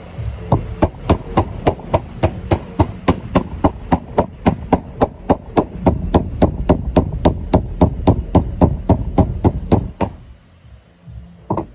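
Light, rapid mallet taps on the finned case of a CYC X1 Pro Gen 2 e-bike mid-drive motor, about four a second, driving the stator shaft home until it sits flush. The taps stop about ten seconds in, and one last tap comes near the end.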